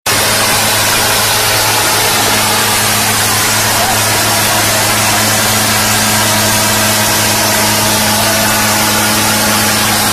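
Diesel tractor engines running hard and steady as two tractors pull against each other in a tug-of-war, a constant low drone under a loud, even rushing noise.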